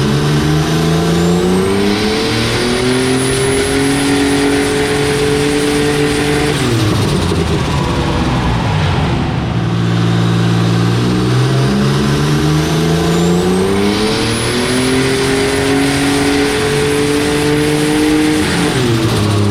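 Turbocharged Ecotec V6 in a Holden Commodore making two dyno pulls on E85: each time the revs climb, hold steady for a couple of seconds, then drop off. A thin high whine rises and levels out with the engine on each pull.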